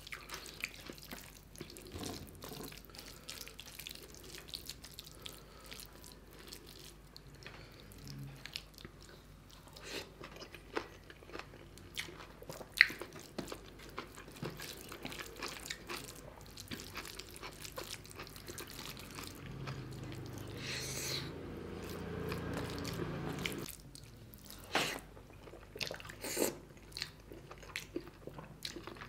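Close-miked eating sounds of a man eating rice and chicken gizzard curry by hand: wet chewing with many short crunchy bites and clicks. A louder, continuous stretch of a few seconds comes about two-thirds through.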